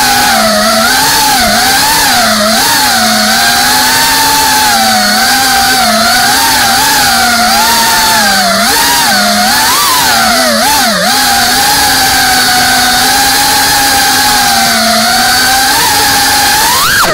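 FPV quadcopter's electric motors and propellers whining, the pitch wavering up and down as the throttle is worked through the flight, with a sharp rise in pitch near the end.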